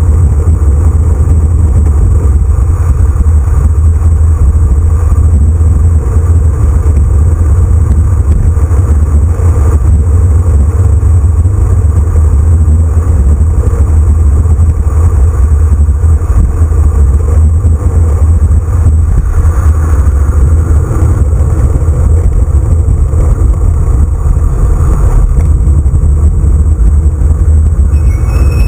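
Wind buffeting a handlebar camera's microphone on a road bicycle descending at speed: a loud, steady, low rumble.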